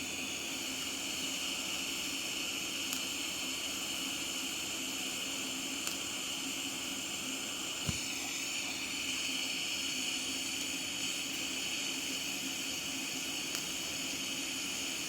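TIG welder running: a steady hiss with a high, thin whine, and a few faint ticks.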